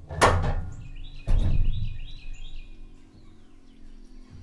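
Two heavy knocks about a second apart, as a sawn cant is handled on the steel bed of a Wood-Mizer LT15 sawmill. Between and after the knocks a bird gives a short run of repeated high chirps.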